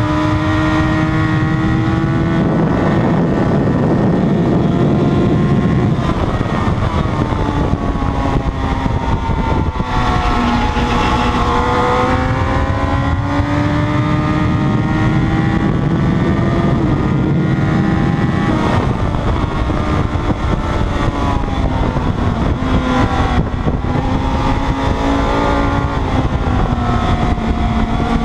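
Sports motorcycle engine heard onboard at track speed, its pitch climbing as it accelerates and falling back as it slows for corners, several times over, with steady wind rush on the microphone.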